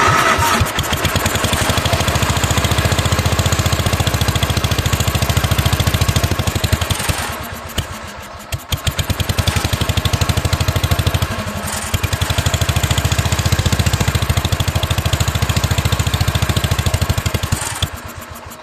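Wheel Horse 245 riding lawn tractor's engine running with a quick, even pulse, freshly started with a jumper wire feeding its ignition. About seven seconds in it falters and sags for a second or two, then picks back up, dips briefly again near twelve seconds, and dies away near the end.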